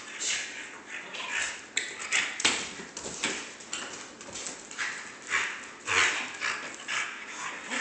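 French bulldog breathing noisily in short, hissy snorts and snuffles while playing with a rubber ball, with a few sharp clicks of its claws on the tile floor.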